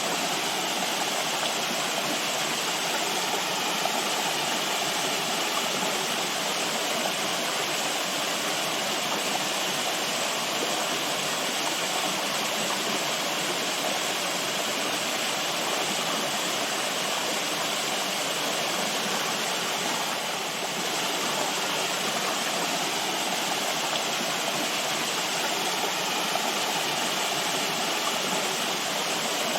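Steady rushing of flowing water, like a stream or small waterfall, with a slight dip about twenty seconds in.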